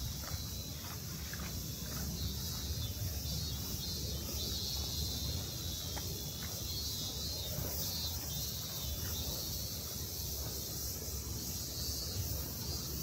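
Steady high-pitched insect chorus over a low, even rumble of city traffic, with a few faint taps.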